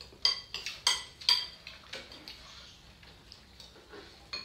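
Chopsticks clinking against ceramic bowls and plates while eating: a few sharp, ringing clinks in the first second and a half, then fainter, scattered taps.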